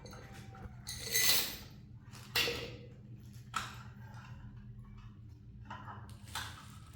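A few clinks and scrapes of handled hard objects: a longer scrape about a second in, then three short sharp knocks spread over the following seconds, over a low steady hum.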